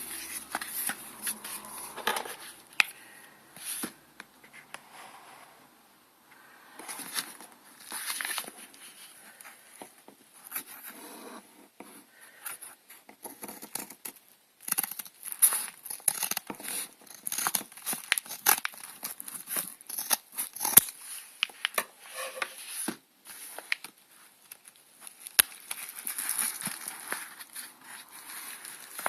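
Hands opening a small parcel: plastic packaging crinkling and rustling, with tearing and small clicks, in irregular bursts and a short lull about six seconds in.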